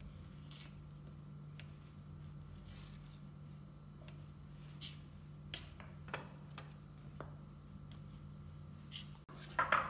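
A knife cutting the crusts off a slice of white bread: faint, scattered crackling cuts and light taps of the blade, over a steady low hum.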